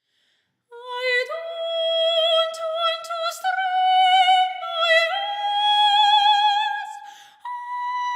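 Soprano singing long held notes with vibrato, climbing slowly in small steps, with a few sharp clicks partway through. About seven seconds in the voice breaks off and a steady tone without vibrato takes over at a higher pitch.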